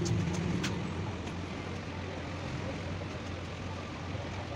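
Steady workshop background noise with a low hum, and a few light clicks about half a second in.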